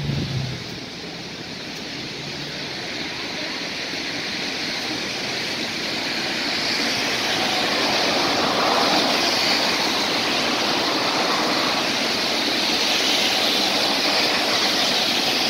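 Road traffic on a wet avenue: the steady hiss of car tyres on wet asphalt, swelling as vehicles pass, about halfway through and again near the end.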